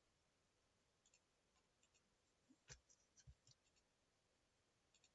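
Near silence, broken by a few faint, short clicks about halfway through from computer mouse and keyboard use.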